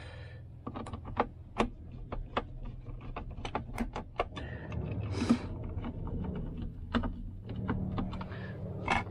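Irregular light clicks and rattles of hands handling small plastic fittings and cable at an inline extractor fan, with a short rustle about halfway through, over a steady low hum.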